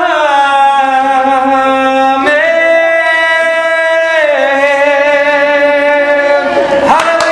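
A man singing three long held notes unaccompanied, the second a step higher than the first and the third dropping lower again; the singing stops near the end.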